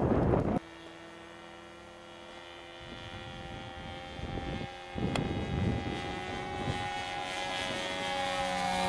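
Small two-stroke glow engine (ASP .25) of a radio-controlled P-51 Mustang model running at a steady high pitch in flight. It grows louder and rougher from about five seconds in as the plane passes close.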